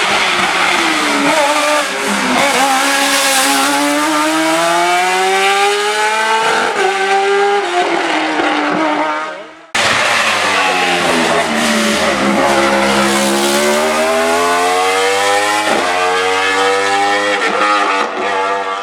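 Race car engines at high revs, pitch climbing and dropping through gear changes as cars accelerate past on a hillclimb. The first car's sound cuts off suddenly about ten seconds in and a second car's engine follows, rising again with quick upshifts near the end.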